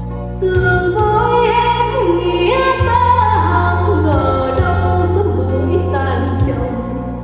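Music played back from a cassette deck: singing voices, choir-like, over held low bass tones. The singing comes in about half a second in and eases off near the end.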